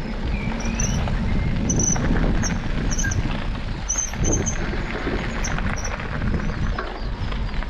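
Mountain bike rolling fast along a gravel trail: wind rumbling over the camera microphone, tyres crunching on the loose surface and the bike rattling over bumps.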